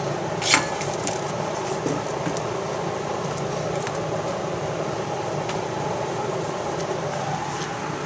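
Steady background hum, with a sharp click about half a second in and a few faint ticks later, from seatbelt webbing and hardware being fed around the dragster's tubular frame bar.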